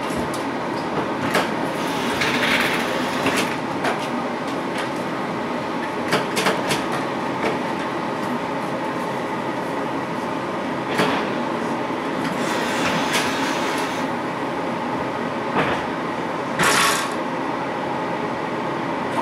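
Interior of a stationary Düsseldorf Stadtbahn light-rail car standing at a stop: a steady hum with scattered short clicks and knocks, and a brief hiss near the end.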